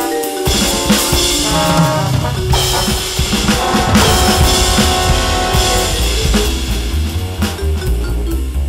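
Roland V-Drums electronic drum kit played in a jazz four-beat swing groove. It sits over a sequenced backing with a bass line moving note by note and sustained chords.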